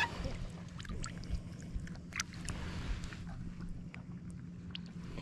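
Faint shallow-water ambience: soft lapping and dripping with a few scattered light ticks, over a steady low hum.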